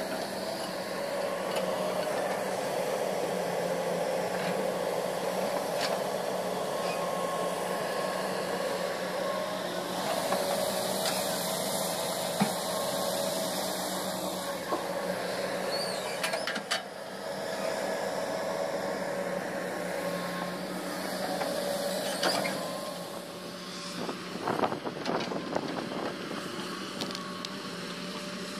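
Hydraulic excavator's diesel engine running under load while it digs and dumps wet clay, the pitch rising and falling slightly as the hydraulics work, with a few sharp knocks from the bucket. The engine is quieter in the last few seconds.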